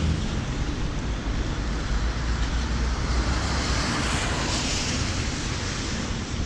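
Rain falling on a clear plastic umbrella overhead, mixed with the steady hiss and low rumble of traffic on a wet city road. The hiss swells about halfway through as a vehicle passes.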